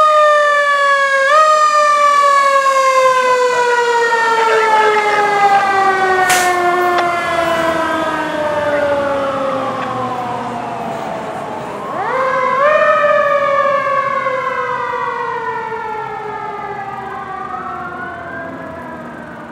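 Fire engine's mechanical siren winding up quickly, then falling away slowly in a long descending wail. It winds up again about twelve seconds in and fades toward the end. A fainter siren rises and falls in between.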